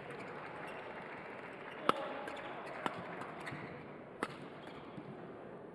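Badminton rackets striking the shuttlecock during a doubles rally: three sharp cracks about a second apart, the first the loudest, with a few fainter taps, over the steady background of a large sports hall.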